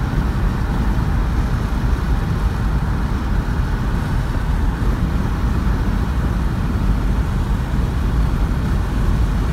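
Steady low rumble of a car driving along a paved highway: tyre and engine noise heard from inside the cabin.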